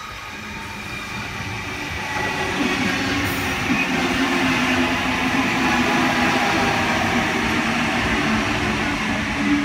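NSW H-set (Oscar) electric multiple unit running in alongside the platform. It makes a steady electric hum under the rumble of wheels on rail, growing louder over the first few seconds as it draws close, then holding steady as the carriages pass.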